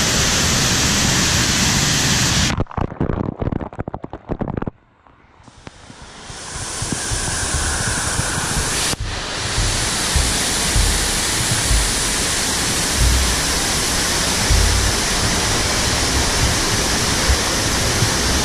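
Steady rush of water noise on a water-park ride. About two and a half seconds in it breaks up into choppy dropouts and falls almost to silence for a moment. It then swells back to a steady rush with low thumps.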